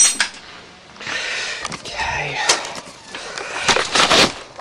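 A sharp metal clank with a brief high ring, then rustling handling noise and several clattering knocks, loudest near the end.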